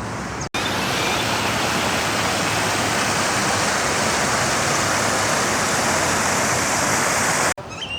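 Water rushing and splashing steadily, as from a waterfall or fountain in a pond; it starts abruptly about half a second in and cuts off abruptly near the end.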